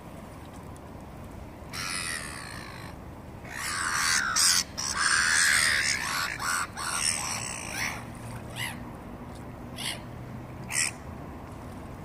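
Black-headed gulls giving harsh, screechy calls over a steady background rush. One call comes about two seconds in, a loud flurry of calls follows for several seconds, and a few single short calls come near the end.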